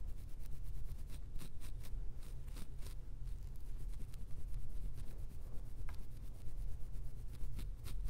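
Fingers scratching a dandruff-flaked scalp through short, tightly coiled hair: a run of short, irregular scratching strokes, several a second, over a steady low rumble.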